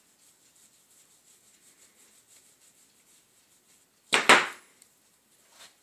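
Hands shaping a ball of bread dough into a hamburger bun, faint rubbing and tucking of the dough, with one short, louder scuff about four seconds in.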